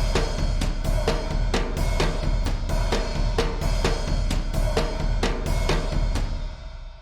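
Sampled percussion from the Percussion Elements 3 Kontakt library playing a steady rhythmic pattern, with about two strong hits a second and lighter hits between. It stops about six seconds in and the last hits ring away.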